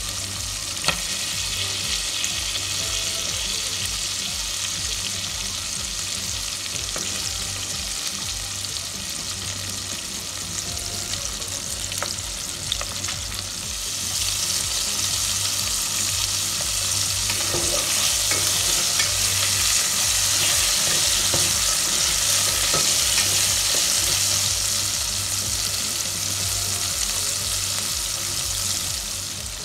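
Flour-coated chicken skin deep-frying in a pot of hot oil: a steady sizzle with small crackles, growing louder about halfway through and easing a little near the end.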